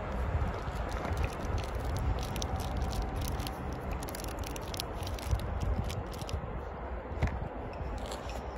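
Low rumble of a train running away down the line into the distance, with scattered faint crackling clicks over it.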